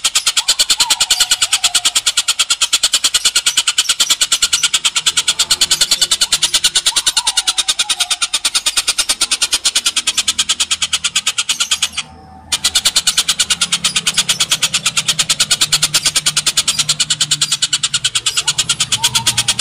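Oriental dollarbird giving its long, harsh chattering call: a fast, even rattle of rasping notes that breaks off briefly about twelve seconds in and then resumes.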